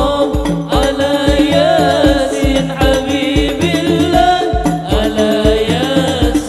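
Sholawat sung by voices over hadroh frame drums, the deep bass drum striking in a steady beat of about two strokes a second.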